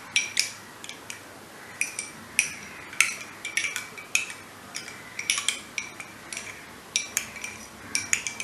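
A teaspoon stirring turmeric, pepper and honey into warm water in a glass, clinking against the glass in quick irregular clusters, each clink ringing briefly.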